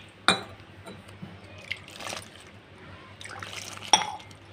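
A hand mixing gram flour and spices in a steel bowl: soft scraping and rustling, with two sharp clicks, one just after the start and one near the end.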